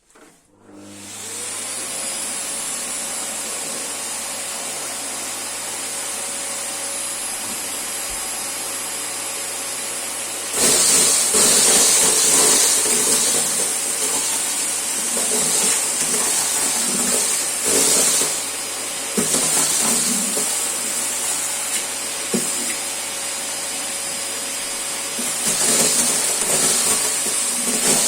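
An old Electrolux vacuum cleaner is switched on and its motor spins up over about a second, then runs steadily with a hum and a hiss. About ten seconds in the sound gets louder and uneven, with scattered crackles, as cornflakes are sucked up off the stairs.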